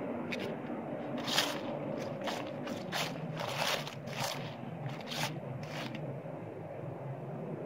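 Dry fallen leaves crunching and rustling in about eight short, irregular bursts, like steps through leaf litter on grass, stopping about six seconds in. A steady low rumble lies underneath.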